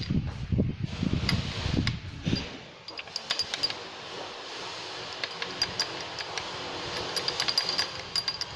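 Light clinking and tapping of a spoon against a small container as slime is stirred, many small clicks over a steady hiss. Low knocks of handling come in the first couple of seconds.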